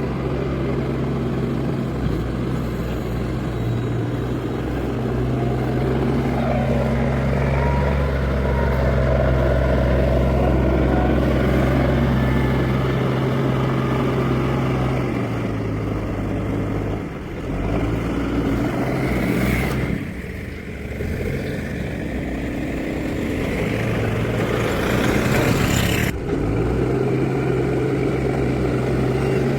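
Escorts backhoe loader's diesel engine running under work, a steady low drone whose note shifts and dips a few times partway through as the load changes.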